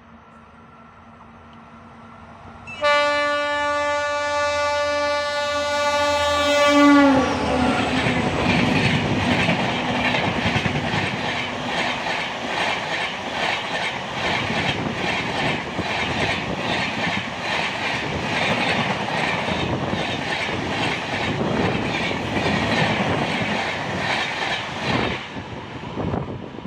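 Express train passing at high speed. The locomotive's horn sounds one long continuous blast from about three seconds in and drops in pitch as the engine passes, about seven seconds in. The coaches then rush by with rapid rhythmic wheel clatter, which fades near the end.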